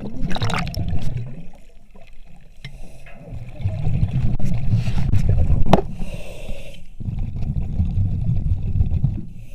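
Diver breathing on surface-supplied air: exhaled bubbles gurgle and rumble in three bursts about every three and a half seconds, with a short hiss between two of them. A sharp click comes about halfway through.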